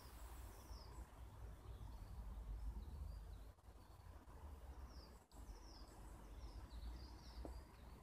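Faint outdoor ambience: small birds chirping with short, high notes scattered through, over a low, uneven rumble.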